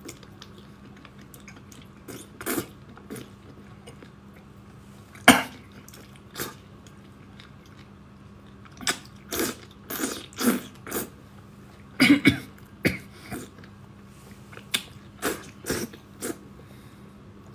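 A person noisily slurping spicy noodles out of chili oil, a series of short wet sucking bursts, some in quick clusters, with a few coughs and throat-clearing noises from the heat of the chili.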